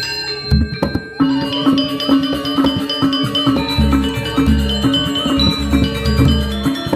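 Gamelan music: a full ensemble of metallic tuned percussion and drums comes in with a few strokes about half a second in. It then plays a busy, fast, repeating figure over steady drum beats.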